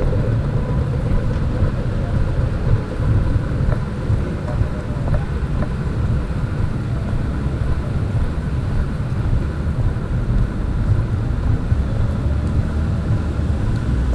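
Rainy city street ambience picked up on a walking camera: a steady low rumble of wind buffeting the microphone and traffic, with a faint hiss of rain.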